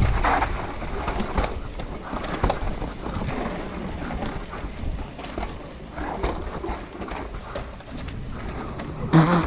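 Mountain bike running fast down a rocky trail: knobby tyres rolling over rock and dirt, the bike rattling with many small knocks and clicks, and a louder knock near the end.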